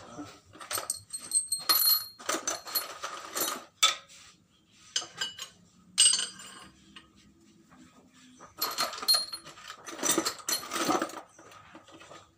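Metal parts and steel bars clinking, scraping and rattling as they are handled and set in place on a press bed, with short ringing taps. There are two busy spells of clatter and a single sharp knock about halfway through.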